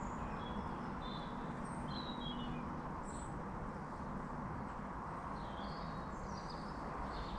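Garden birds chirping in short, high calls scattered through, over a steady background hiss and low hum.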